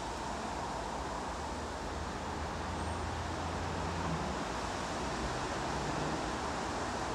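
Two Class 37 diesel locomotives on full power, their English Electric V12 engines giving a steady low drone that slowly grows louder as they approach.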